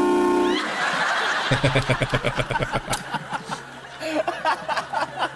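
Train horn mounted on a small electric car, blasting loudly as a chord of several tones and cutting off about half a second in. Laughter follows.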